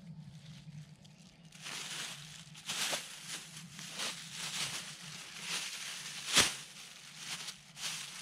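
Plastic bag crinkling and rustling in irregular bursts as it is handled and stuffed into a backpack. A sharp knock about six seconds in is the loudest sound.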